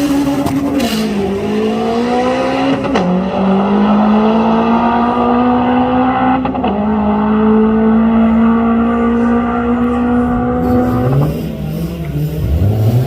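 Turbocharged Honda K20 four-cylinder in a Civic accelerating hard at full throttle. Its note climbs through each gear with three quick drops at the gear changes, then falls away as it lifts off near the end.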